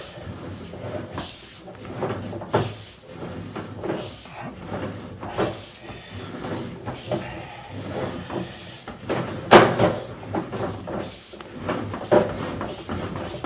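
A string of irregular knocks, clatters and rubbing sounds, the loudest sharp knock about nine and a half seconds in.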